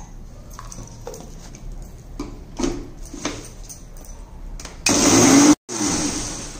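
Electric mixer grinder with a steel jar grinding green chutney of mint, coriander and green chilli: a loud, even motor rush for under a second, cut off abruptly, then briefly again as it fades. Before it come a few soft knocks and clicks.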